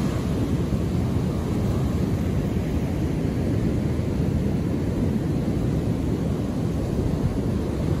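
Ocean surf breaking on a sand beach: a steady, low rumble of waves with no single crash standing out.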